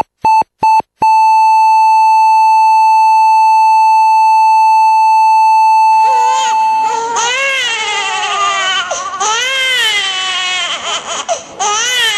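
Electronic monitor beeps coming faster and faster, then running into one long steady tone for about six seconds. About six seconds in, a newborn baby starts crying in rising and falling wails, a sound effect for the birth.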